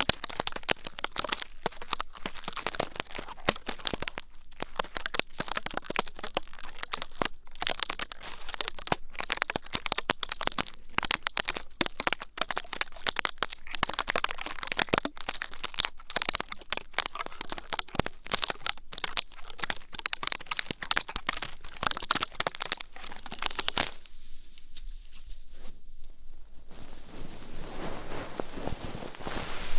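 Dense, rapid close-miked crackling and scratching of ear-cleaning ASMR. About 24 seconds in it gives way to a steady hiss that grows louder toward the end.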